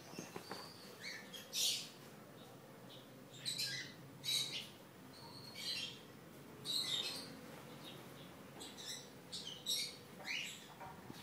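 Birds chirping in short, irregular high-pitched calls, a few each second at their busiest.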